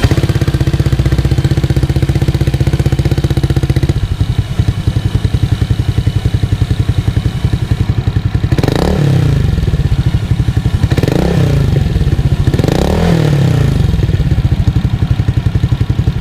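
Honda Air Blade scooter's single-cylinder engine, bored up to 170cc, running through a silver Akrapovic aftermarket muffler during a sound check: it idles, then is revved three times in the second half, each rev rising and falling back to idle.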